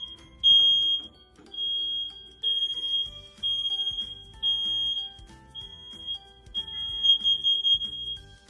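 Hardwired, battery-backed smoke detector sounding its alarm: a high steady tone in long beeps about once a second, which cuts off near the end. Soft background music plays underneath.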